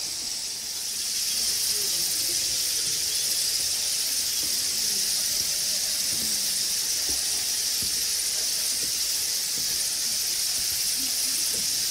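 Steady high-pitched hissing drone, a shrill even hiss with no clear pulses, getting a little louder about a second in, with faint low sounds scattered under it.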